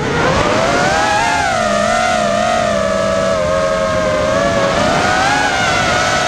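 Racing quadcopter's four Lumenier 2206 2300KV brushless motors spinning 5-inch three-blade props, a loud steady whine whose pitch wavers gently with the throttle, heard from the onboard camera.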